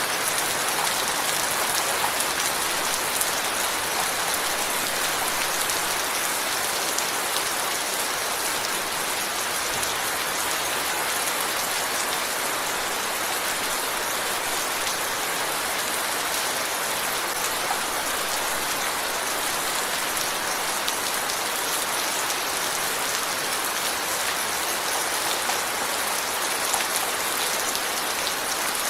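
Steady rain falling, an even hiss of many fine drops hitting a surface, with no let-up.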